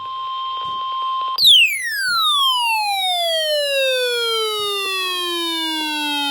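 NOAA Weather Radio warning alarm tone, a steady 1050 Hz beep over radio hiss, that breaks off about a second and a half in. It is replaced by a loud whistle-like glide, full of overtones, that slides steadily down in pitch for about five seconds. A second, shorter falling glide starts near the end.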